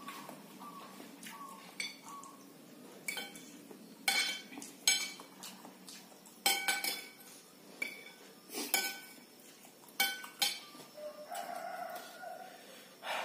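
Metal fork and spoon clinking against a ceramic plate as noodles are worked and scooped, about eight sharp clinks at irregular intervals.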